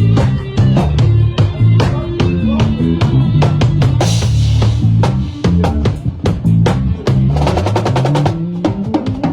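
Live band playing: a drum kit beat over a bass line, with a cymbal crash about four seconds in and a fast drum roll near the end.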